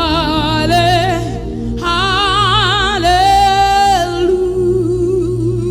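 Gospel worship singing: a solo voice holding long notes with a wide vibrato over steady sustained background chords, loudest from about two to four seconds in.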